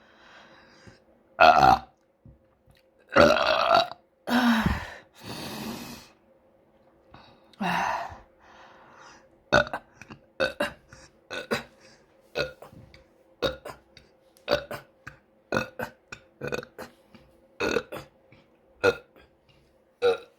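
A person burping over and over. Several long, drawn-out burps come in the first eight seconds or so, then a run of short, sharp burps about one a second.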